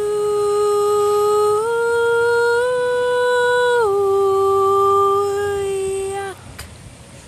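A solo soprano voice sings long held notes without words and without accompaniment. The note steps up twice, then drops back to the first pitch and is held before cutting off about six seconds in.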